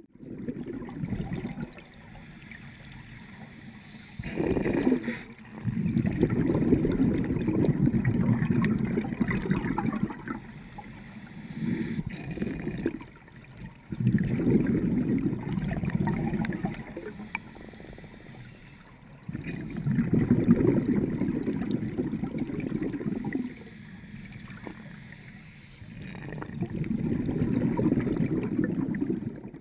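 Scuba diver's exhaled bubbles from the regulator heard through an underwater camera housing: a low bubbling in bursts of three to four seconds, recurring every six to seven seconds with quieter gaps between breaths.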